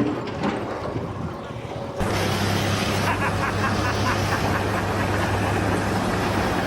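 An engine running steadily with a low hum, starting after a cut about two seconds in, with a fast run of ticks a little past the middle.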